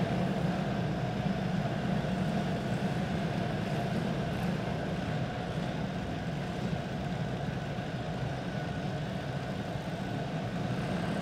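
Small single-cylinder clone kart engines running on the dirt track, a steady drone that holds throughout.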